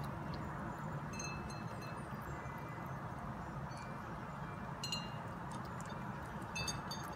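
A kitten eating wet cat food from a plastic tray over a steady low background hum. A few brief high-pitched tinkles sound about a second in and twice near the end.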